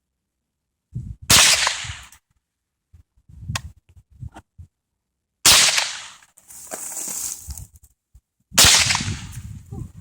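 Three single AR-15 rifle shots fired one at a time, about four and then three seconds apart, each a sharp crack with a short echoing tail.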